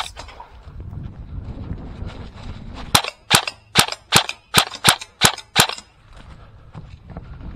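ICS CXP M.A.R.S. electric airsoft carbine firing eight single shots in quick succession, about three a second, each a sharp snap. A low rumbling noise comes before the shots.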